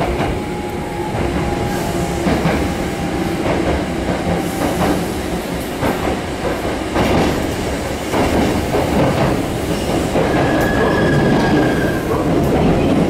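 Nose Electric Railway train running, heard from inside the car: steady rolling noise with irregular wheel clicks over the rail joints. A thin wheel squeal comes in briefly near the end.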